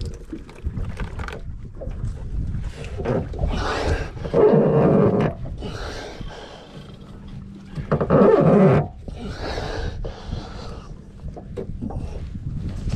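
Men grunting as they strain on a rope to haul a dead alligator into a boat, with two loud grunts about a second long, one near the middle and one a few seconds later.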